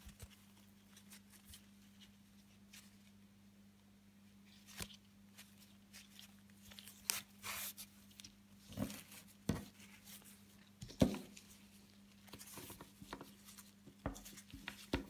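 Wide satin ribbon being pulled through embroidery canvas in a hoop and handled: faint rustles and small clicks, with several short scraping swishes from about five seconds in. A steady low hum runs underneath.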